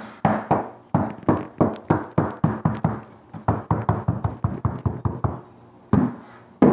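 Hammer knocking on the edge of a luxury vinyl floor plank in a quick run of strikes, about three a second, seating the plank's click-lock joint. After a short pause it strikes twice more near the end.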